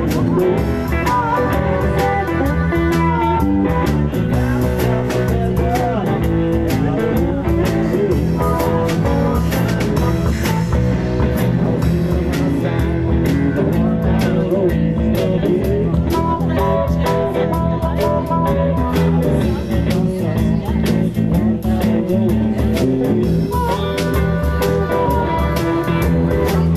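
A blues band playing live: electric guitar over a drum kit keeping a steady beat, with no singing.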